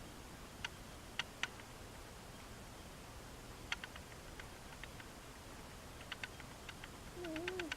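A sleeping cat snoring very softly: faint scattered clicks and ticks, then a short wavering whistle through the nose near the end.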